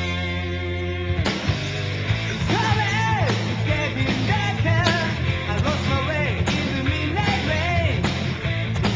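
1980s heavy metal song: a held band chord with electric guitar and bass for about the first second, then drums and band kick in and a male rock vocal comes in about two and a half seconds in, singing over the band.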